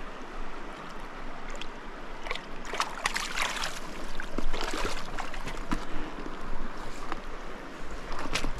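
Shallow stream water splashing and sloshing in irregular bursts, clustered in the middle and again near the end, over the steady flow of the stream.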